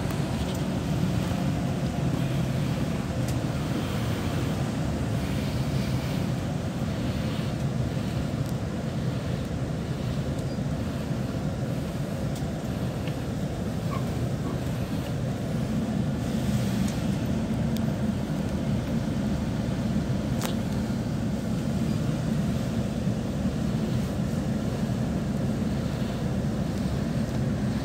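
Steady low rumble of a bus's engine and road noise, heard from inside the passenger cabin, with a few faint clicks.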